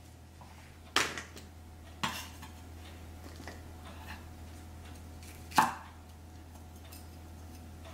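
Santoku knife chopping through red bell pepper onto a wooden cutting board: three sharp knocks of the blade on the board, about one second in, about two seconds in, and the loudest at around five and a half seconds, with faint ticks between them.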